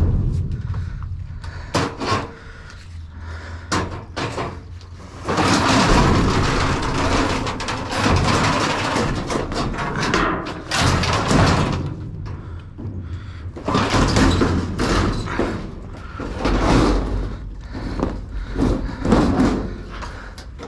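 Scrap being loaded and shifted on a pickup truck: repeated knocks and bangs, with longer stretches of scraping and rustling noise.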